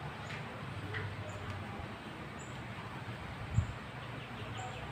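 Classroom room tone: a steady low hum with faint short high chirps about once a second, and a single knock about three and a half seconds in.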